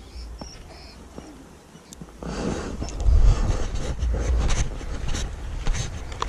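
Faint clicks at first, then from about two seconds in a louder rumbling, rustling noise of the camera being moved, with scattered scuffs and clicks.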